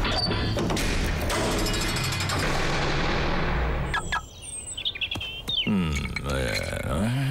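A dense clattering cartoon soundtrack, then a few short high electronic beeps from a small remote key fob, then a man's low, wordless grumbling.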